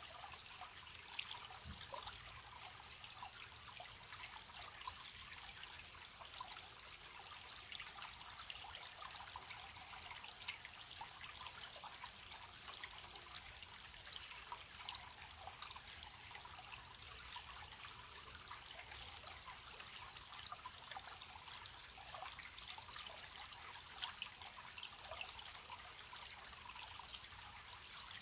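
A small stream trickling and babbling, with crickets chirping steadily in a fast, even pulse.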